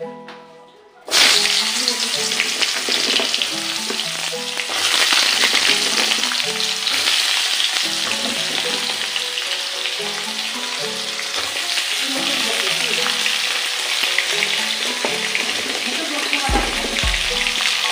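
Chunks of potato, eggplant and ridge gourd hitting hot oil in a wok, starting to sizzle suddenly about a second in and frying steadily after, growing a little louder a few seconds later.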